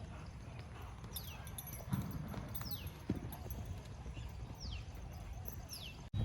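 Faint hoofbeats of a horse running loose on soft ground, with a couple of louder thuds about two and three seconds in. Short high falling whistles repeat about every second and a half.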